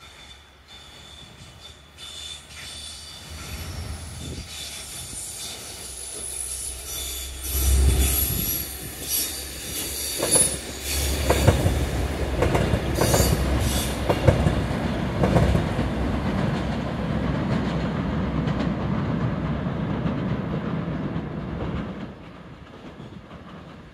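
Two coupled Alstom Coradia LINT diesel multiple units passing close by, engines running and wheels squealing high, with the wheels clicking over rail joints as they go by. The sound builds as they approach, stays loud for several seconds, then drops off sharply near the end as they move away.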